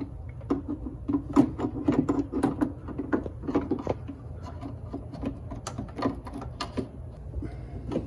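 Irregular light clicks, clanks and rattles of metal parts being handled: the chrome exterior door handle and its latch rod being worked by hand inside a C3 Corvette door.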